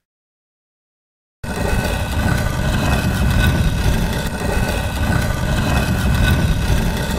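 A steady low rumble with hiss over it, which sounds like a running engine. It starts abruptly about a second and a half in, after silence, holds at an even level and cuts off sharply at the end.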